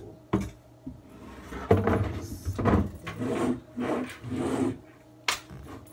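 A wooden board scraping and rubbing in several strokes along the floor of a kitchen sink cabinet as it is pushed into place. A sharp knock comes just after the start and another near the end.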